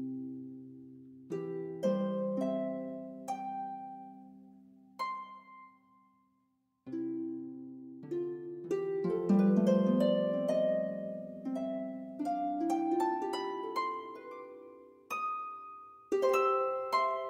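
Background music of plucked notes and chords that ring and fade, with a brief pause about six seconds in before a busier run of notes.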